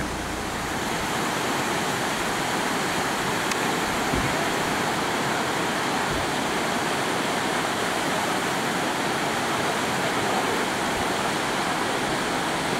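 The Nive river rushing: a steady, even rush of flowing water.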